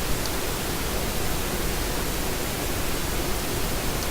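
Steady, even hiss with no pitch or rhythm, and a couple of faint ticks.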